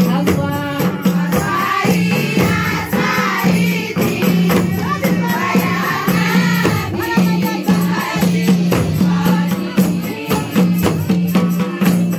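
A group of girls singing an Islamic devotional song together, with hand percussion such as a tambourine or rattle keeping a steady beat.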